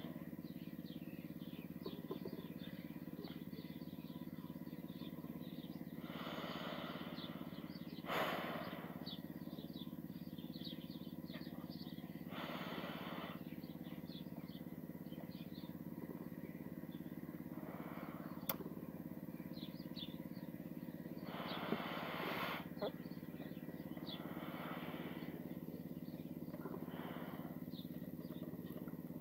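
Outdoor background sound: a steady low hum with faint high chirps scattered through it. A handful of soft rushing swells, each about a second long, come and go, and there is one sharp click about two-thirds of the way through.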